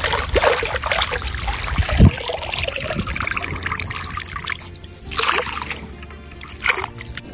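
Water splashing and trickling as a long-handled dip net is swept through shallow muddy water and lifted out, water draining through the mesh, with a few sharper splashes.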